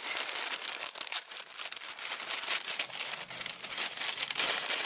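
Crinkling and tearing of a foil blind bag's packaging, rustled and pulled open by hand in short, irregular crackles.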